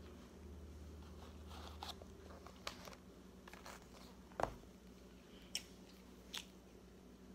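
Faint biting and chewing of a soft slider sandwich, with scattered small mouth clicks and a few light knocks as the cardboard slider box is handled, the loudest about four and a half seconds in as the box is set down.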